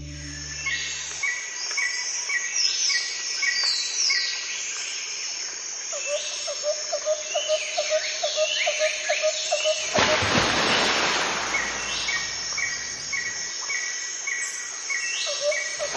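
Woodland ambience: songbirds calling in repeated short chirps and quick sweeping phrases, with a run of rapid lower chirps for a few seconds. About ten seconds in, a steady rushing noise joins.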